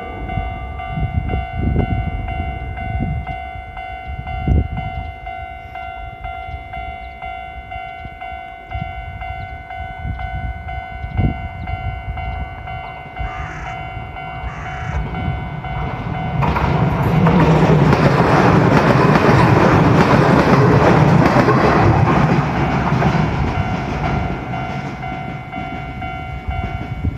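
Level-crossing warning bell ringing steadily while an Izuhakone Railway Sunzu Line train runs over the crossing. The train is loudest for several seconds in the second half, then fades.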